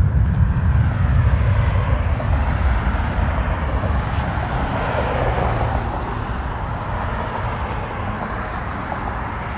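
Jet airliner engine noise after takeoff: a steady, heavy low rumble with a broad hiss above it, slowly fading as the plane climbs away.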